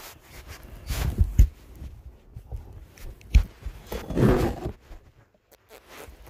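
Close, muffled rustling of a fleece blanket and handling of the phone, with several dull thumps, one cluster about a second in and another a little past three seconds, then a longer muffled rustle.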